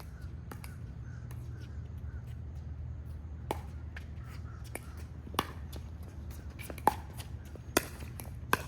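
Pickleball rally: paddles striking a hard plastic pickleball, five sharp pops spaced one to two seconds apart from about three and a half seconds in, with fainter ticks before them, over a steady low hum.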